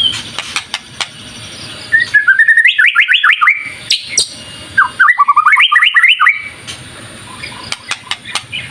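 White-rumped shama (murai batu) singing: two fast phrases of rapid, repeated notes, one about two seconds in and one about five seconds in, with short sharp clicking calls in between.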